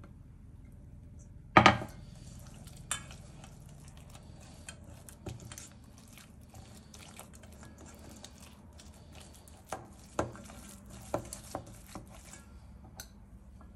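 Silicone spatula stirring and scraping dough in a stainless steel bowl, with repeated small clicks and taps against the metal. A sharp knock about a second and a half in is the loudest sound, and a few more knocks come near the end.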